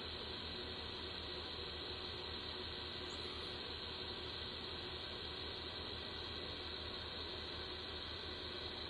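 Steady background hiss with a faint low hum and a thin steady tone, unchanging throughout, with no distinct events.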